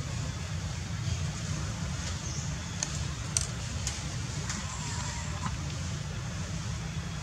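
Steady low outdoor rumble, with a few faint sharp clicks and a brief faint thin tone around the middle.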